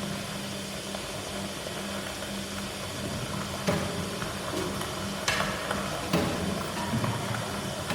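Improvised turntable and drum music: a steady low hum under hiss and crackle, with scattered sharp clicks and hits coming in from about halfway through.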